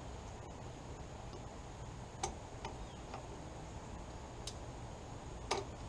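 A handful of sharp, scattered metal clicks and taps from a tool working the lock-washer tabs on a Willys CJ-2a front hub nut, bending them over, against a faint steady background hiss.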